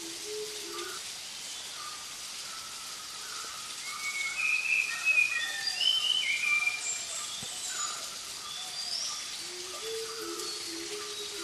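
Forest birdsong: several birds calling over one another with short chirps and whistles, growing louder and busier in the middle. Low repeated two-note calls come in at the very start and again near the end.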